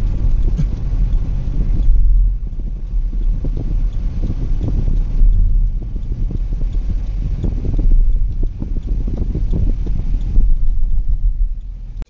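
Steady low rumble of a car in motion, heard from inside the cabin: road and engine noise with uneven buffeting.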